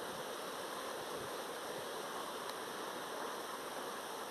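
Steady faint hiss of background noise with no distinct event.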